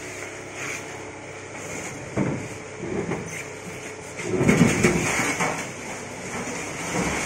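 Knocks and scraping as heavy plastic-wrapped machines are lifted and shifted by hand, loudest in a longer scraping stretch a little past the middle.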